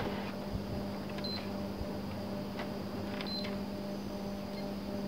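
PS4 Pro console being switched on: two short, high beeps about two seconds apart, with faint handling clicks over a steady low hum. The console starts and then shuts itself off at once, a power fault that the technician suspects is a short circuit.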